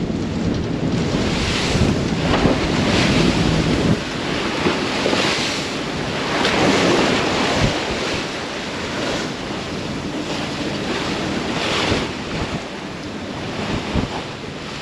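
Wind buffeting the microphone over the rush of waves along the hull of a sailing yacht running before a big following swell, the noise rising and falling in surges, with a few short knocks in the second half.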